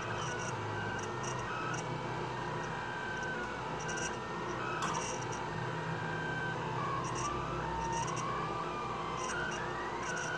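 Delta 3D printer's stepper motors whining as the print head moves, the pitch gliding up and down and changing with each move, over a steady hum, with short faint ticks now and then.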